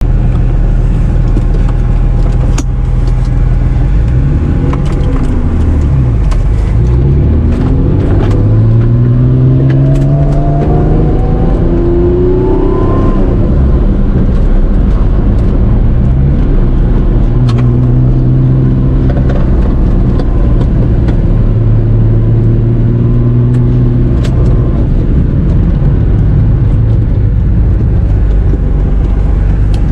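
Turbocharged Honda NSX's 3.0-litre C30A V6 running under way, revving up steadily through a gear from about seven seconds in, then settling to a steadier pitch, with scattered sharp clicks.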